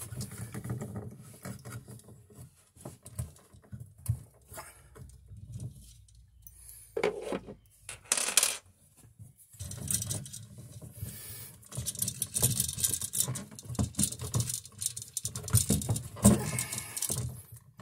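Small metallic clinks and rustling from handling a GFCI receptacle and pushing its wires into a plastic electrical box, in scattered irregular bursts with a quieter stretch near the middle.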